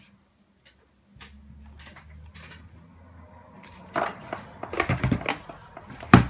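Plastic clicks and knocks from handling an FPV goggle headset on a bench: a few light clicks, then a busier run of clicks and knocks, and one sharp knock near the end.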